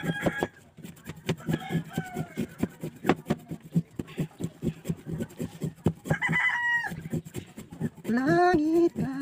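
Serrated kitchen knife shaving a hard block of sangkaka (raw cane-sugar cake) into flakes on a plastic tray: quick, rhythmic scraping strokes, several a second. A rooster crows in the background about six seconds in and again near the end.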